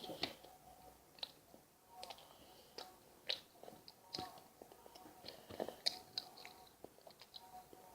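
Close-up mouth sounds of someone eating cheesecake: soft chewing with irregular wet clicks and smacks.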